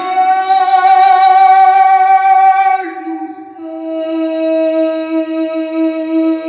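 A singer holding two long sustained notes, about three seconds each, the second a little lower than the first.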